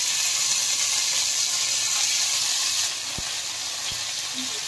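Food frying in hot oil in a pan, a steady sizzle that eases off a little about three seconds in.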